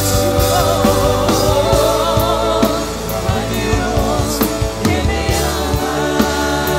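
Live worship music: a woman singing a wavering, vibrato melody into a microphone over a band with drums, sustained chords and a steady bass. The bass moves to a new note about five seconds in.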